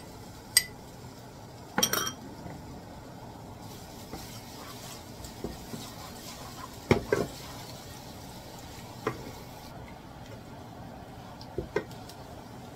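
Minced garlic being scraped from a small bowl into a nonstick pan with a metal spoon, which clinks on the bowl a few times in the first two seconds. After that, a wooden spoon stirs the garlic in hot oil, with a faint sizzle and scattered knocks against the pan, a pair about seven seconds in and more near the end.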